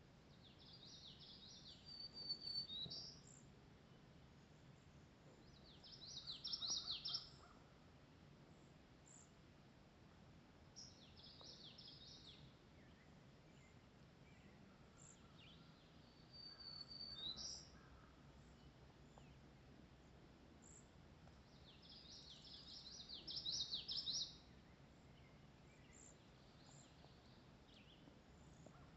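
A songbird singing the same short, high song five times, about every five seconds, with faint chips from other birds between the songs.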